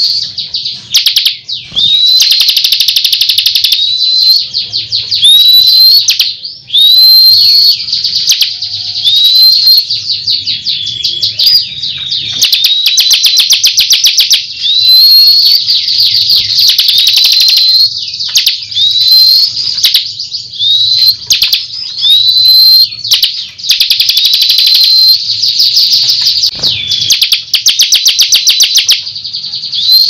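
Caged bar-winged prinia (ciblek kristal) singing without pause. It pours out fast, rattling trills, the rapid-fire 'tembakan' phrases, broken about every second or so by short upward-hooking whistles.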